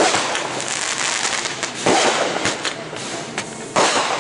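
Consumer fireworks going off close by: three sudden bangs about two seconds apart, each fading into a hiss, with a few short sharp pops between the second and third.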